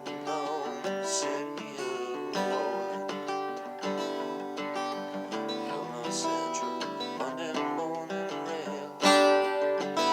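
Acoustic guitar being picked and strummed, with a harder, louder strum about nine seconds in.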